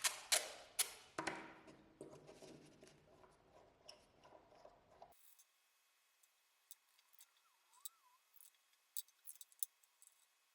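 Sharp clicks and clinks of small hard objects being handled: four loud ones in the first second or so, trailing off into lighter clinking, then, after an abrupt change in the background, sparse faint clicks.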